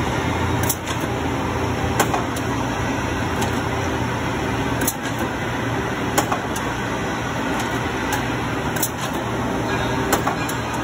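Voortman V500 CNC hydraulic punch and shear system running: a steady hum with sharp metallic clanks that come in pairs about a second apart, repeating about every four seconds as the machine cycles.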